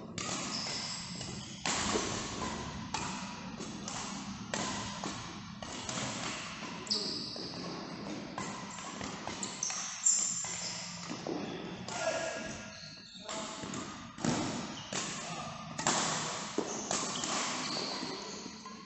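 Badminton play in a hall under background music: sharp hits of rackets on the shuttlecock and thuds of shoes on the court, often about a second apart.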